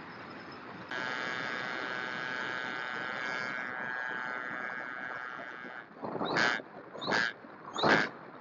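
E-flite Valiant RC plane's electric motor and propeller whining steadily, starting abruptly about a second in and cutting off near six seconds. Then four loud, short, harsh cries follow in quick succession.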